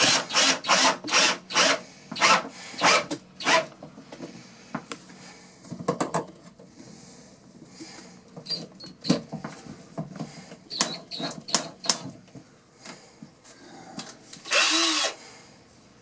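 Cordless drill working into the birch frame of a wall-mounted medicine cabinet in short bursts with pauses between them, pilot holes so the screws won't split the wood. A longer, louder run comes near the end.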